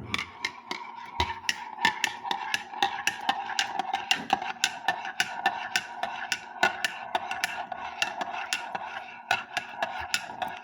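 A metal spoon stirring milk in a ceramic mug, clinking against the sides about four times a second, with the mug ringing steadily beneath the clinks.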